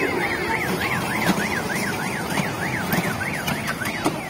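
An electronic siren warbling rapidly up and down, about three to four sweeps a second, over steady background noise. The warble stops shortly before the end.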